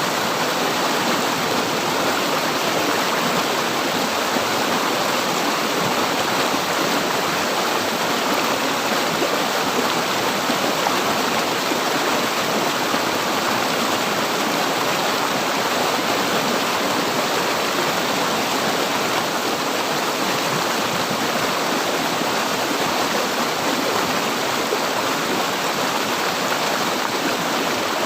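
River water flowing steadily over rocks: an even, unbroken rushing.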